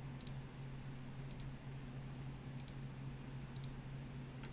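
Computer mouse clicking, mostly in quick pairs about once a second, over a steady low electrical hum.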